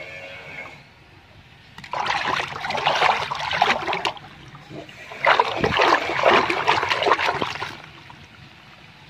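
Water in a toilet bowl sloshing and splashing as a hand churns it round, in two loud bouts of about two seconds each.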